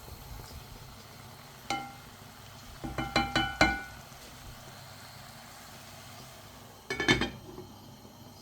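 Metal cookware clinking: sharp knocks that ring on briefly, once about two seconds in, a quick run of four or five a second later, and a short cluster near the end.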